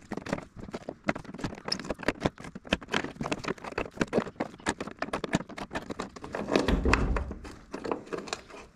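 Hand tools clicking, tapping and scraping on the metal windshield trim clip of a 1954 Chevy Bel Air as the clip's fastener is worked loose. It is a rapid, irregular run of small clicks, with a duller rumble of handling a little after six seconds.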